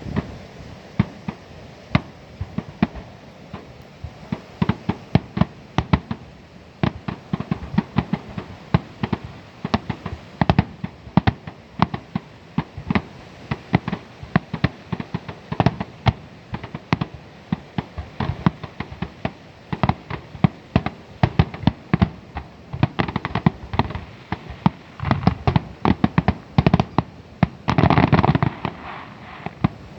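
Fireworks finale: a dense, rapid string of shell bursts and bangs, building to a thicker, louder barrage near the end.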